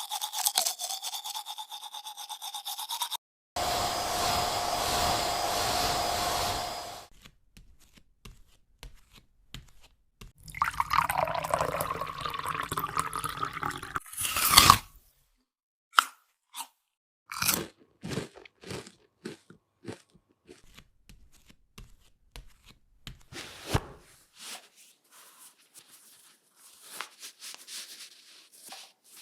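A string of separate household foley sounds: a few seconds of steady rushing noise, another noisy stretch ending in a sharp sound at about fifteen seconds in, then scattered short crunches, clicks and taps.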